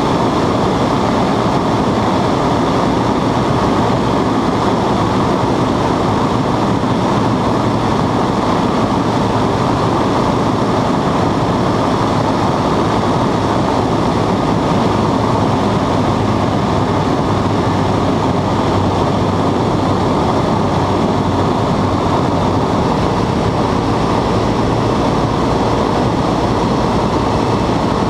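Westland Lysander's radial engine and propeller in steady flight, heard from inside the cockpit as a loud, unchanging drone.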